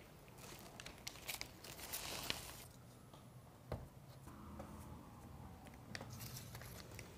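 Faint peeling and crinkling of mastic tape being pulled off its roll and pressed by hand onto a metal valley flashing, with a few light clicks and taps.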